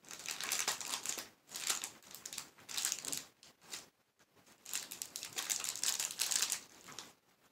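Plastic wrapper of a Paleta Payaso clown-face lollipop crinkling as it is handled and pulled open, in four crackly bursts with short pauses between them; the last and longest starts about halfway through.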